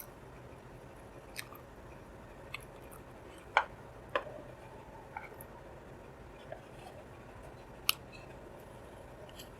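Close-up eating sounds: quiet chewing broken by about eight short, sharp clicks and smacks, spaced a second or so apart, with the two loudest about a third of the way in and near the end.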